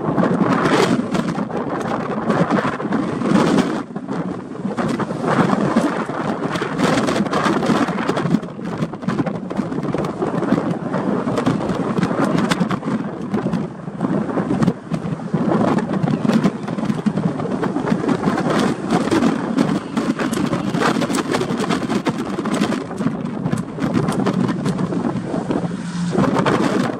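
Strong gusty wind blasting over the microphone while riding across a bridge, a loud, fluctuating rumble, with the bridge railings whistling in the gale.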